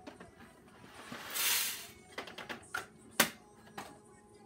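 Hands working a coffee grinder: a brief rush of noise about a second and a half in, then a few sharp clicks and knocks, the loudest about three seconds in.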